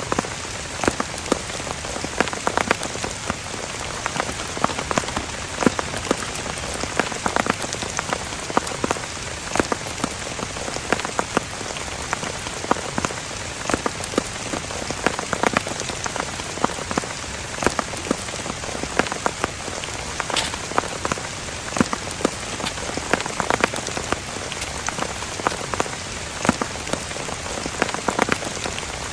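Heavy rain falling steadily, with many sharp individual drop hits standing out over the hiss of the downpour.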